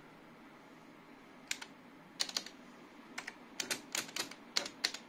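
Typing on the keyboard of a Teletype Model 43 KSR teleprinter: sharp, irregularly spaced key clicks in small clusters, starting about a second and a half in.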